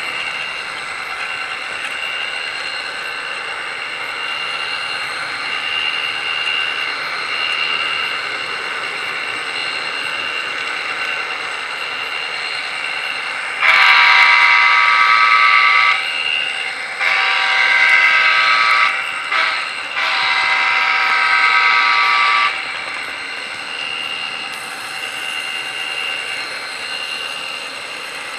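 HO-scale model train running along its track with a steady whir. About 14 seconds in, its locomotive's horn sounds the grade-crossing pattern: two long blasts, a short one and a long one.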